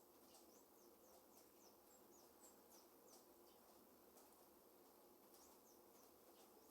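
Near silence, with faint, short, high-pitched chirps scattered irregularly over a quiet background hiss.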